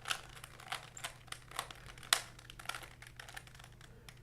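3x3 Rubik's cube being turned by hand: an irregular run of quick plastic clicks as the layers are twisted, with one sharper click about two seconds in.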